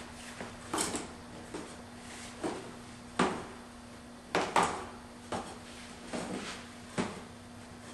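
Irregular clicks and knocks of the Lennox PMAC air cleaner's filter casing and its plastic spacer combs being handled, about nine over several seconds, over a faint steady hum.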